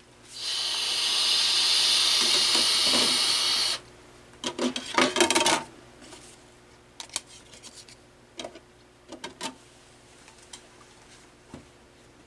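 A loud, steady hiss lasting about three seconds and ending abruptly. Then comes a short burst of plastic clattering and knocks as compact discs are lifted off a CD changer's carousel tray, followed by a few light clicks.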